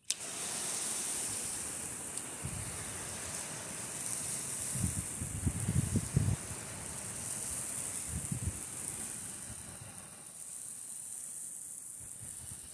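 Fan-tip spray from a 12-volt softwash rig's spray gun, hissing steadily as water sprays across a concrete slab; it starts suddenly as the gun opens.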